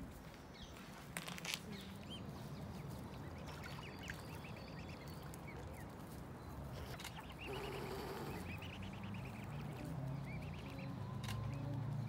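Mute swan cygnets peeping: many short, high, upward-sliding chirps, a cluster a few seconds in and a denser run near the end, over a low steady background rumble.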